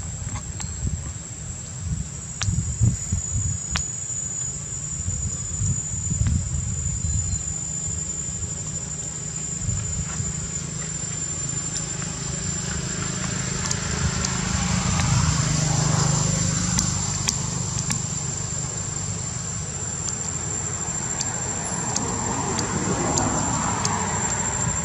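Outdoor background of low rumble with a motor vehicle passing, swelling to its loudest about sixteen seconds in, over a steady high-pitched whine.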